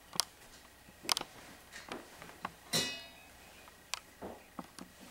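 Scattered light knocks and clicks of objects being handled in a small room, with one louder ringing clink nearly three seconds in.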